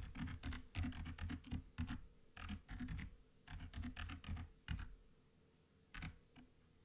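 Typing on a computer keyboard: a quick run of keystrokes for about five seconds, then a few more keys near the end.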